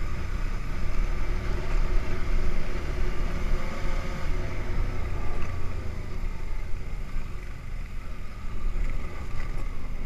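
ATV engine running steadily under way, heard close from a camera mounted on the machine, with a heavy low rumble.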